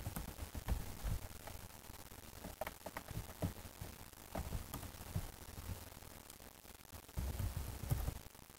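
Computer keyboard typing: scattered key clicks and taps over a low rumble, with a denser run of sound near the end.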